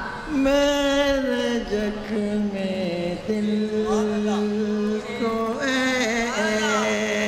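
Voices singing a naat, a devotional chant, in long held notes with wavering, curving ornaments. A boy sings into the handheld microphone at the start, and an elderly man has taken over by about halfway.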